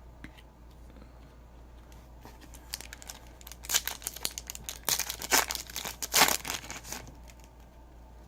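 A foil trading-card pack wrapper being torn open and crinkled, starting a few seconds in and stopping near the end.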